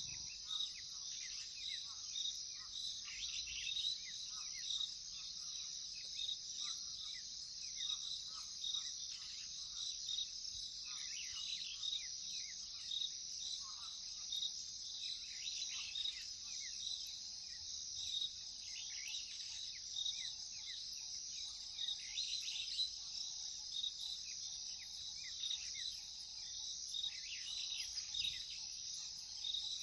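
Savanna night-and-day ambience: a steady, high-pitched chorus of crickets, with many short falling bird calls over it. In the second half a soft lower note repeats about once a second.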